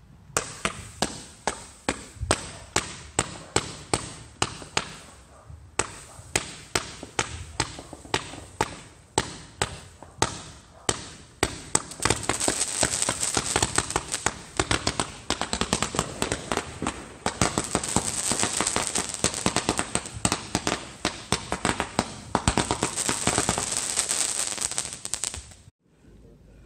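Multi-shot consumer firework cake firing: a quick string of sharp launch shots, about two a second, then about halfway through a dense continuous crackling that stops suddenly near the end.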